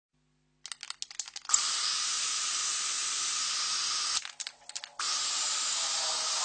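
Steady hiss of static noise, starting after about a second of crackling clicks; it drops out with more crackles for under a second in the middle, then resumes.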